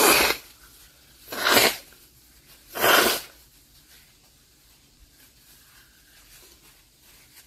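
A young woman sneezing three times in a row into a tissue, about a second and a half apart, from allergic rhinitis.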